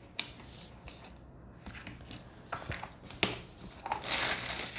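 Small plastic drill containers and lids being handled on a tabletop: a few light clicks, one sharper about three seconds in, then plastic bags of diamond painting drills crinkling near the end.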